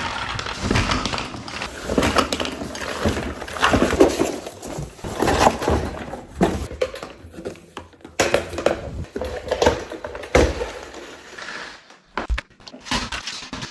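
Handling noise from unboxing and assembling a Vacmaster 5-gallon shop vacuum: irregular knocks, scrapes and rustling as parts are handled and fitted, with a short lull near the end.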